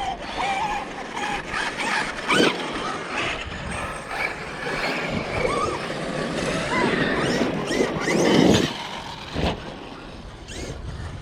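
Large electric RC off-road cars running on a dirt and rock track. The motor and drivetrain whine rises and falls with the throttle, tires churn over gravel, and there are a couple of sharp knocks, which sound like landings or hits.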